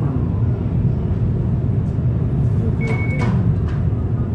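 Steady low road and engine drone inside a moving car, with one short high electronic beep about three seconds in.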